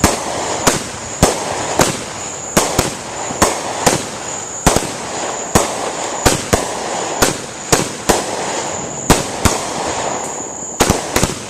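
Consumer fireworks going off in quick succession: a long string of sharp bangs, about two a second, over a steady crackling hiss.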